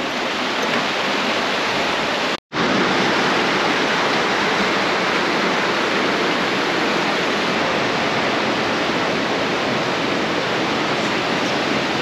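Steady rush of a rocky canyon stream flowing below, cutting out for a moment about two and a half seconds in.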